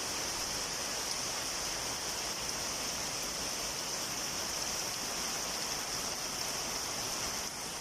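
Heavy rain pouring down steadily: a continuous, even hiss.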